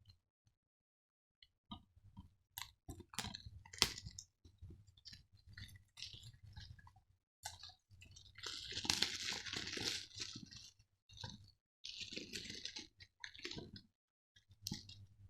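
Crinkly plastic wrapping being torn and peeled off a DVD case, with scattered clicks and snaps of plastic. There are two longer stretches of crinkling about nine and twelve seconds in.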